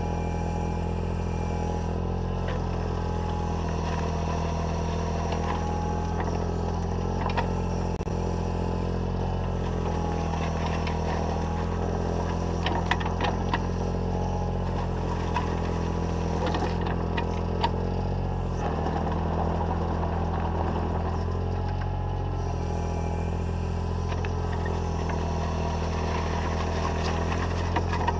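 Takeuchi TB014 mini digger's diesel engine running steadily under load while its hydraulics work the arm and bucket. A few sharp clatters of stone against the steel bucket come about a third of the way in and again around the middle as the bucket spreads and levels gravel.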